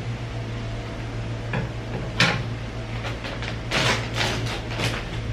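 Plastic bag of potting mix rustling and crinkling as it is opened and handled: a sharp crinkle about two seconds in and a run of several more near the end, over a steady low hum.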